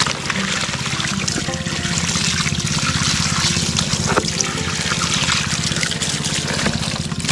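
Water from a garden hose splashing and trickling over the plastic bed of a toy dump truck as it is rinsed of mud.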